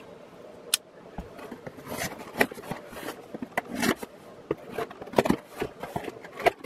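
Box cutter slitting the packing tape on a cardboard shipping box, with scraping, tapping and rustling of the cardboard as the box is handled and its flaps are worked open. After a single click near the start, the irregular run of short scrapes and taps begins about two seconds in.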